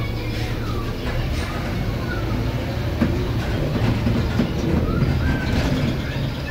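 Volvo B7R LE city bus under way: the diesel engine runs with a steady low hum while the body and fittings rattle and knock over the road, the rattling heavier from about halfway.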